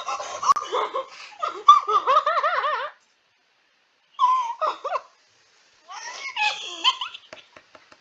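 A person laughing in high-pitched giggles: a long fit of about three seconds, then two shorter bursts after pauses.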